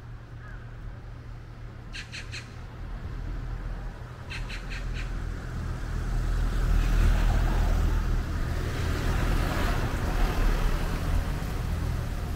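A small bird gives two quick runs of high chirps, about two seconds apart. Then a broad rumbling noise swells up and stays loud, like traffic.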